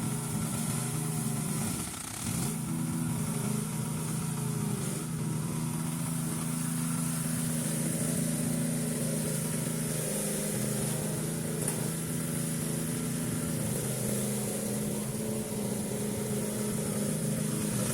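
Cordless battery-powered weed cutter running steadily, a motor hum with a few small shifts in pitch and a brief dip about two seconds in.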